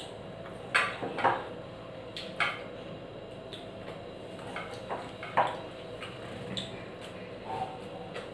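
Hand-eating from a stainless steel plate: fingers working the rice against the metal, with a handful of sharp clinks and taps from the plate and small steel bowls, the loudest about a second in and again just past the middle.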